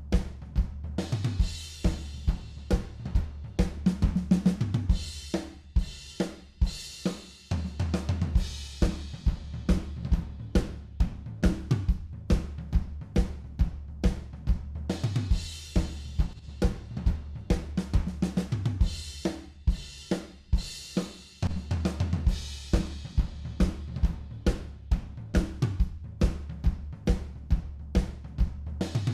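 Recorded live drum kit playing a fast, busy groove of kick, snare and hi-hat, with a bass line underneath and cymbal crashes every several seconds. The mix is played back through compressor plugins.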